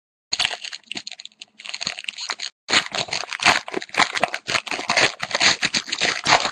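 A hockey card pack wrapper being torn open and crumpled, a dense run of crinkling and crackling with a short pause partway through.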